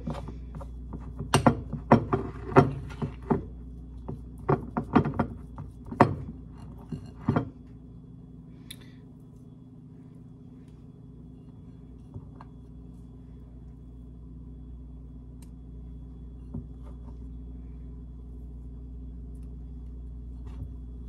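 Kitchen handling noises over a crock pot while biscuit dough is pinched off for dumplings: a quick run of sharp knocks and taps in the first seven or so seconds. After that only a steady low hum remains, with a few faint ticks.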